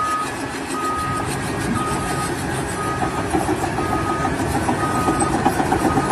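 A vehicle's reversing alarm beeping about once a second, each beep about half a second long, over the steady running of a heavy vehicle's engine with some rattling in the second half.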